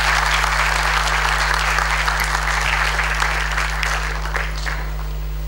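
Audience applauding, starting abruptly and thinning out to a few last claps just before five seconds in.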